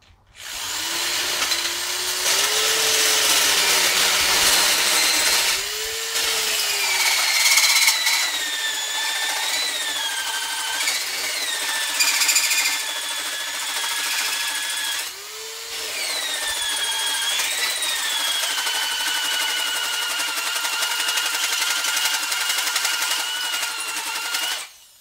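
Corded electric drill boring a hole under load, its motor running steadily and easing off briefly twice, about 6 and 15 seconds in. A high squeal from the bit cutting rises over the motor from about six seconds on. The drilling stops just before the end.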